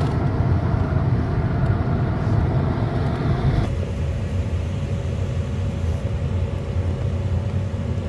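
A motor vehicle's engine running steadily with a low rumble. Its higher-pitched noise drops away a little under four seconds in, while the low rumble carries on.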